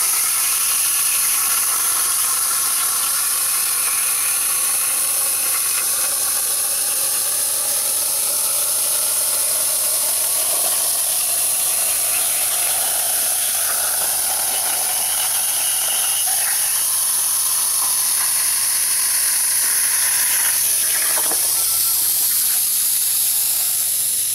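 Hypertherm air plasma torch cutting steel plate: a loud, steady hiss of the plasma arc and air jet with a wavering whine over it. Near the end the cut finishes and the arc goes out, leaving the air still hissing.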